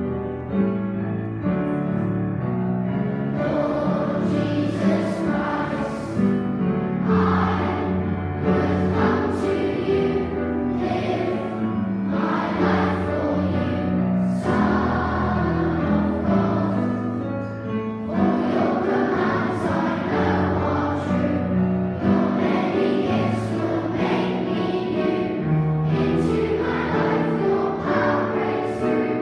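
Grand piano playing a hymn, joined about three seconds in by a large group of children singing together.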